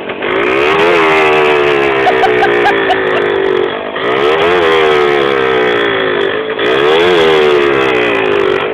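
WSK 125 motorcycle's two-stroke single-cylinder engine being revved three times by hand, each blip of the throttle rising quickly and then dropping slowly back toward idle.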